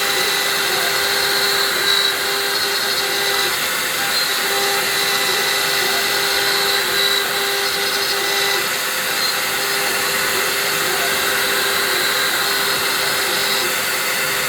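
Hobby CNC milling machine running: a steady motor whine over a hiss, with a tone that drops out and returns a few times.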